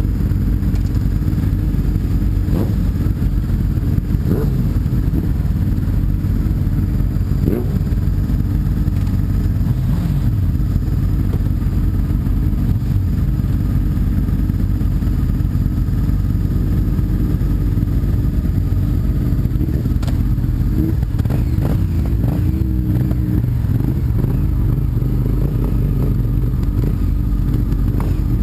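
Sport motorcycle engine running while under way, under a heavy low rumble of wind noise on the microphone. The engine pitch shifts a few times.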